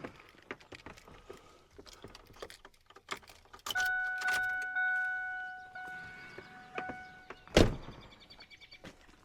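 Keys and clicks as the ignition of a 2001 Ford F-350 is switched on to energize the glow plug relay, then a steady electronic chime from the truck's warning buzzer sounding for about three and a half seconds and fading. A single loud thump near the end.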